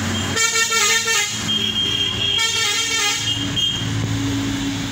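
Vehicle horn sounding twice, each blast about a second long, over a steady engine hum.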